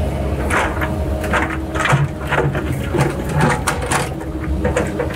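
Excavator running with a steady hum while riprap rocks knock and clatter again and again as the machine handles them.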